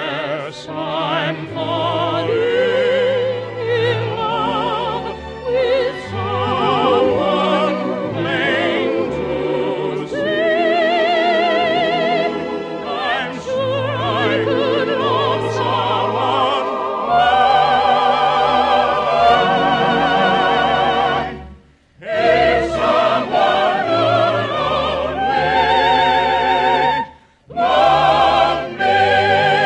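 Operatic singing with strong vibrato over an orchestra. The music drops out briefly twice in the last third, then resumes.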